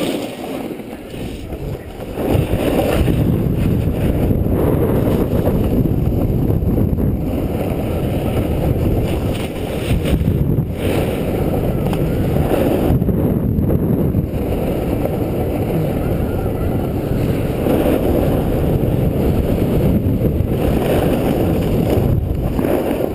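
Snowboard sliding and carving down a snowy slope, a steady low rumble and scrape, with wind rushing over the microphone; it gets louder about two seconds in as speed picks up.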